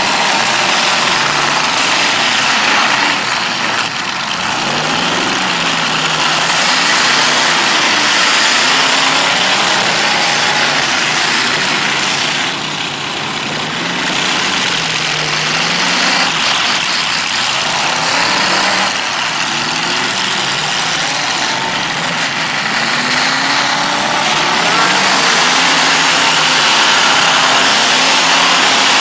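Many demolition derby cars' engines running and revving together in a loud, continuous roar, their pitches rising and falling over one another.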